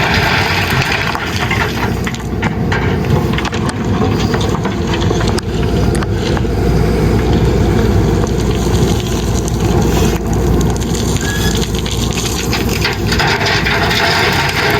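JCB 3DX backhoe loader's diesel engine running steadily under load, with gravel crunching and clattering in short sharp clicks as it is worked.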